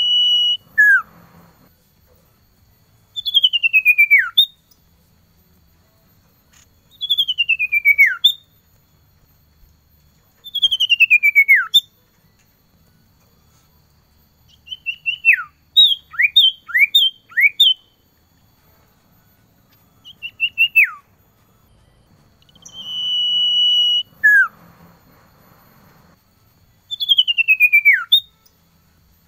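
Male common iora singing its call to a female: a series of clear whistles, mostly long notes sliding down in pitch, repeated every few seconds. A held steady whistle comes at the start and again about two-thirds through, with a quick run of short falling notes midway.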